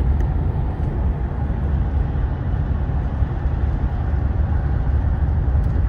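Steady road and engine noise of a car cruising at highway speed, heard from inside the car, with a strong low rumble.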